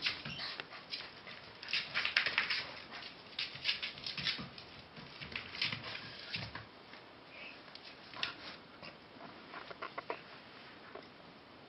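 Puppies scuffling and play-fighting over toys: a dense run of scratchy clicks and scrapes from paws, claws and teeth on the floor and toys, thinning out to scattered clicks after about six seconds.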